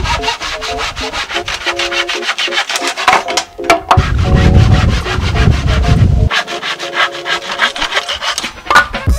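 Handsaw cutting through a softwood plank in quick, rhythmic back-and-forth strokes, with a short pause about three and a half seconds in.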